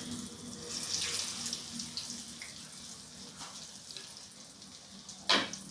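Oil sizzling and bubbling around crumb-coated potato-and-egg balls deep-frying in a pan, strongest in the first second or two and slowly dying down. A single sharp knock about five seconds in.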